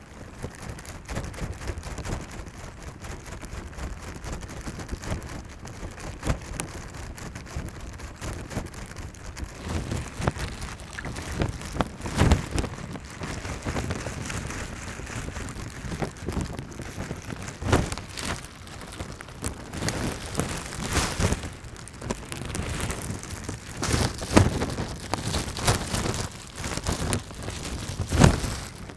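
Steady rain with scattered sharp taps of drops landing close by, and a few louder low thumps at irregular moments.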